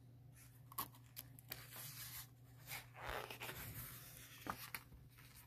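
Faint rustle of a picture book's paper page being handled and turned by hand, with a few soft taps and a swish of the page about three seconds in.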